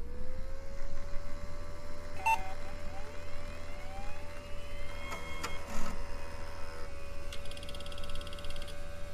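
A siren-like tone that slides up just as it begins and then holds one steady pitch, over a low hum. Scattered clicks and short glitchy noises sound through it, with a brief buzzing patch near the end.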